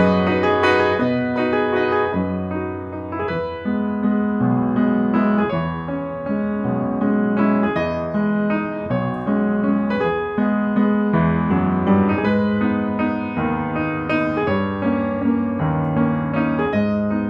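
Background instrumental music with a piano-like keyboard playing chords that change every second or so.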